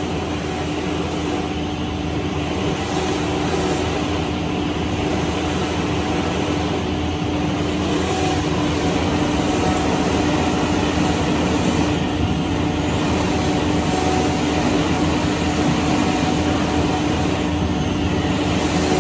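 Holztek PRO-R1V9F CNC router's spindle running under load as its bit engraves lettering into a white-faced board. It makes a steady hum over the continuous hiss of cutting.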